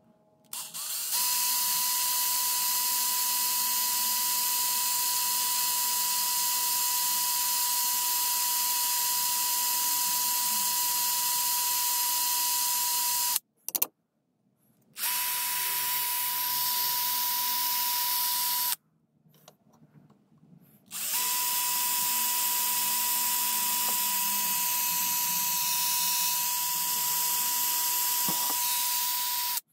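Ryobi cordless drill running at a steady speed with a small bit, boring pilot holes into a thin strip of wood. It runs in three long stretches with an even whine, stopping briefly between them.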